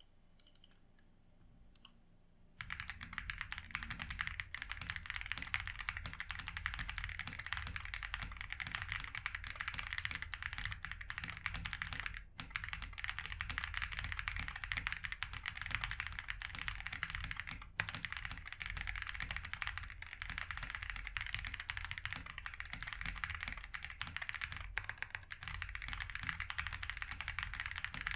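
Fast, continuous typing on a Meletrix Zoom98 full-size custom mechanical keyboard: an aluminium gasket-mount board with a polycarbonate plate and a PE foam sheet under the PCB, tuned for a poppy sound, fitted with Snow Grape switches. The typing starts about two and a half seconds in after a few faint clicks, and breaks off briefly twice.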